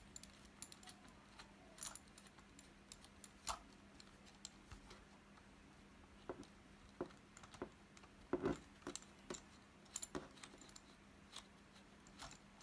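Faint, scattered plastic clicks and small knocks of a plastic nut being turned by hand on the threaded plastic shank of a toilet fill valve.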